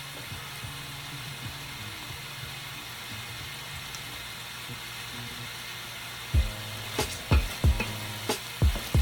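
Vegetables sizzling steadily in a hot pan during a stir-fry. From about six seconds in, a utensil knocks against the pan again and again as the vegetables are stirred.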